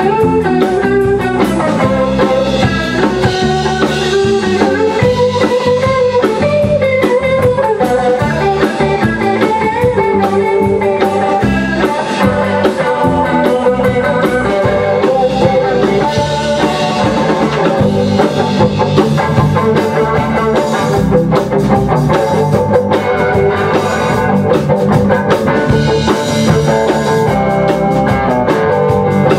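Rock band playing an instrumental passage: electric guitar carrying a melody over electric bass and a drum kit, with no vocals.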